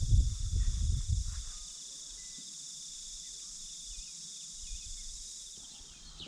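A steady high-pitched chorus of insects. Low rumbling thumps fill the first second and a half, then fade.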